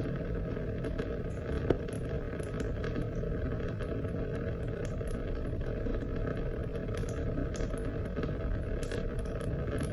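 Steady rain, with a low rushing wash and scattered drops ticking irregularly on top, and one sharper tap about 1.7 seconds in.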